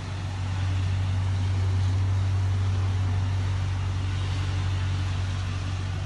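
The 1985 Mercury Grand Marquis's 5.0-litre V8 engine running steadily at idle, a constant low hum.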